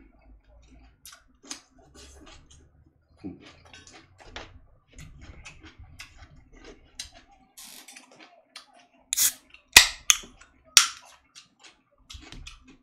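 Eating sounds: a spoon and chopsticks clicking and tapping against dishes, with a few loud, sharp snaps about nine to eleven seconds in.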